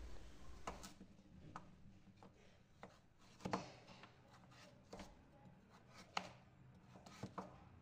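Kitchen knife slicing a carrot lengthwise on a wooden cutting board: faint, irregular knocks as the blade cuts through and meets the board, about nine strokes.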